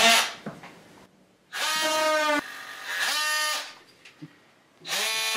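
Oscillating multi-tool cutting into drywall in three short runs of about a second each. Each run is a steady buzzing whine that rises in pitch as the motor starts and drops as it stops.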